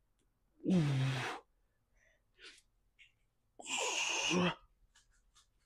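A man's forceful exhales of effort during dumbbell lateral raises: two breathy, voiced grunts falling in pitch, about a second in and again about four seconds in.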